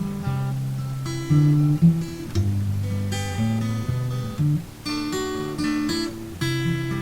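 Acoustic guitar music, strummed chords changing every second or so.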